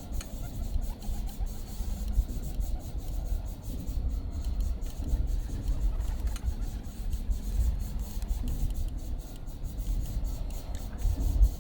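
Wind buffeting the microphone: a low rumbling rush that rises and falls in gusts, with a stronger gust near the end.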